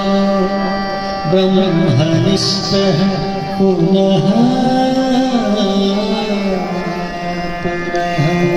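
Hindu devotional aarti song: a voice sings a slow melody that slides and bends over a steady, held drone.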